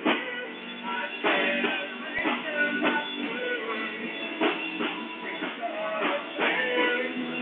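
Rock music with guitar and drums, with strong accents about every second and a half.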